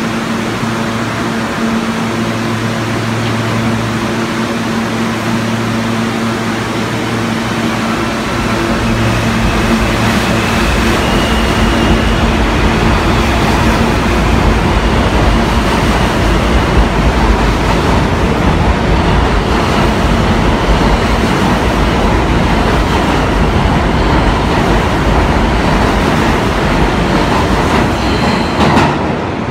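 New York City subway E train standing at an underground platform with a steady hum, then pulling out: the rumble and wheel noise build from about ten seconds in as the cars run past, loud until just before the end.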